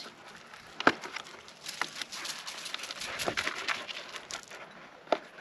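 Cardboard bike-box packaging being handled as a tab is pulled out: light rustling and crackling with four sharp clicks and knocks spread through it.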